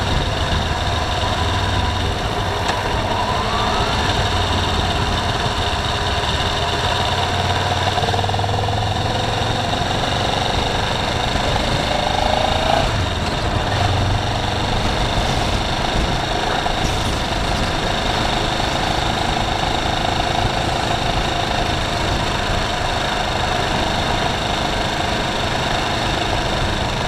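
Steady car cabin noise while driving: engine running and tyre and road noise, at an even level with no sudden events.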